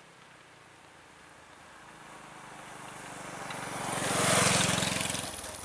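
A motor vehicle drives past. Its engine and road noise grow louder to a peak about four seconds in, then fade.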